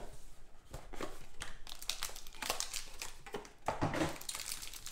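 Foil trading-card pack wrapper crinkling as it is handled and opened by hand, in short irregular rustles.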